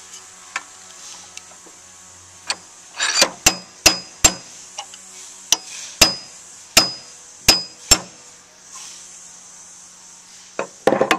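Claw hammer striking a steel punch held against the end of a drawknife's wooden handle, driving out the rat-tail tang. About a dozen sharp metallic strikes come irregularly spaced, several with a brief high ring, and end in a quick flurry of hits near the end.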